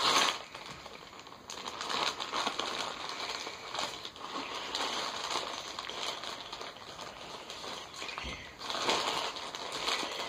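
Irregular rustling and crinkling as items from a coin collection are handled and unpacked.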